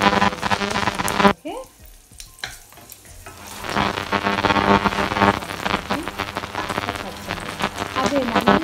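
Garlic cloves sizzling in hot oil in a frying pan, stirred with a wooden spatula. The sizzle drops away sharply about a second in and builds back up from about three and a half seconds.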